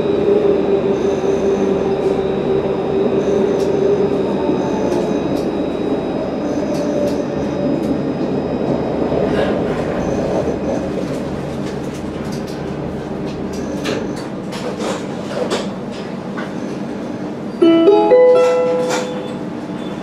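Alstom Citadis 302 tram running along the line: a steady whine that fades after about five seconds, over a rumble of wheels on rail with scattered clicks. Near the end a chime of several tones sounds, the lead-in to an onboard passenger announcement.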